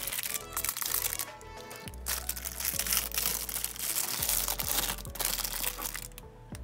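Background music with steady held notes and a bass line, over the crinkling of clear plastic wrap being handled around a glass bottle.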